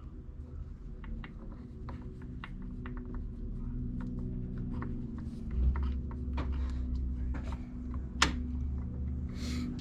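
Light clicks and taps of motorcycle grip parts being handled at the handlebar, with one sharper click about eight seconds in, over a steady low hum.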